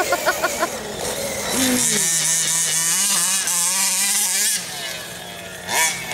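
Modified 29.5cc two-stroke petrol engine of a 1/5-scale RC monster truck running as the truck drives across grass, a steady engine note that fades away about four and a half seconds in and comes back near the end. A voice is heard briefly at the start.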